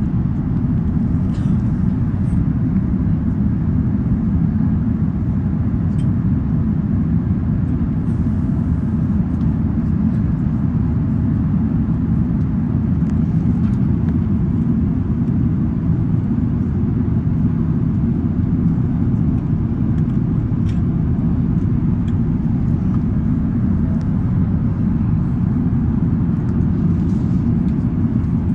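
Steady low rumble of an Airbus A380-861's engines and airflow, heard inside the passenger cabin.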